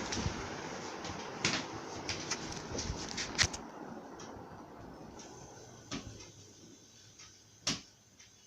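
Venti Delta New Delta Light ceiling fan whose steady air noise fades away as the fan slows down, with a few sharp clicks or knocks along the way, the loudest near the end.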